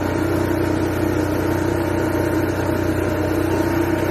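Motorhome generator's small engine running steadily, freshly fitted with a new carburetor.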